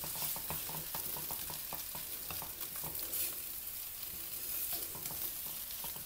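Fried noodles sizzling in a non-stick wok while a silicone spatula stirs them, with many soft scraping ticks from the spatula against the pan over a steady hiss of frying.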